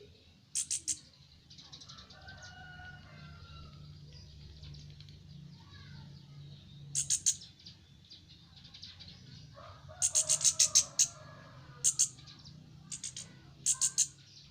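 Short, sharp high chirps from a young chestnut-capped thrush, in quick runs of three to eight, the longest run about ten seconds in, over a low steady hum.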